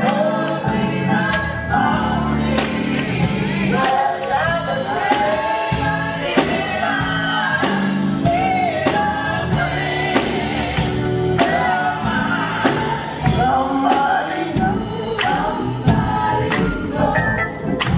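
Recorded gospel quartet singing in harmony over instrumental backing with a steady drum beat.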